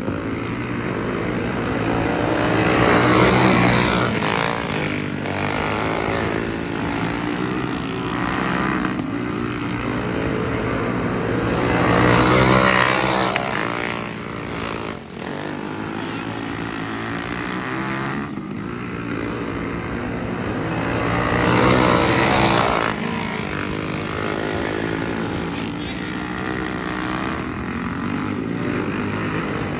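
A field of dirt-oval racing karts running their small single-cylinder engines at racing speed, the engine pitch rising and falling through the corners. The sound swells three times, about every nine or ten seconds, as the pack comes past on each lap.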